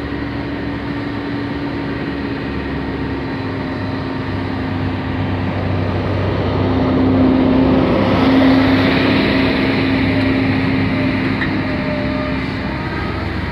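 Diesel engine of a CAT M315D wheeled excavator running steadily as it digs sand. The engine works harder and grows louder for a few seconds in the middle as the boom and bucket move under hydraulic load, then settles back.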